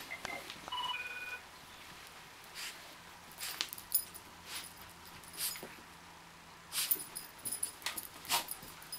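Miniature pinscher pawing and burrowing into a fleece blanket on carpet, giving irregular bursts of rustling and scratching, loudest a few seconds in and again near the end.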